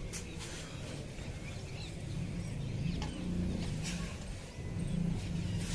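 Outdoor background: faint birds chirping over a low, steady rumble, with a few brief rustling sounds.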